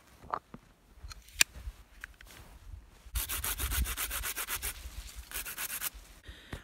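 Small hand saw cutting an aspen sapling in quick back-and-forth strokes, starting about halfway through with a short pause before a final run. Before it, a few light knocks and one sharp click as the branch is handled.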